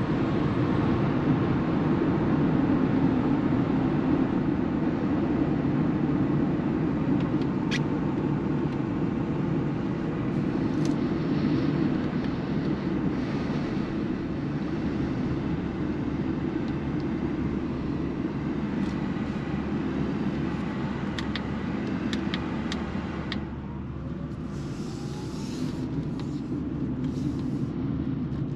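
Road and tyre noise heard inside the cabin of a Mercedes EQB 350 4MATIC electric SUV on the move, a steady low rumble with no engine note. It eases about three-quarters of the way through as the car slows, with a few faint ticks and brief hiss near the end.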